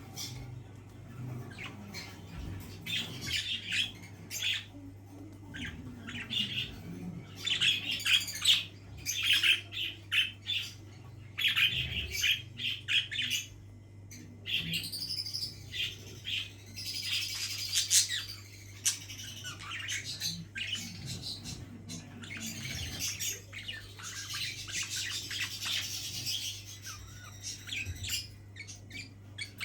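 Pet budgerigars chirping and squawking in quick bursts of high, rapid notes, busiest in the middle and again near the end, over a steady low hum.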